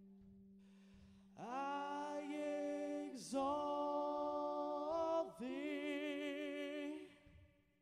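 A man singing three long phrases of held, wavering notes, each starting with an upward slide, over a faint low sustained keyboard note; the singing fades out near the end.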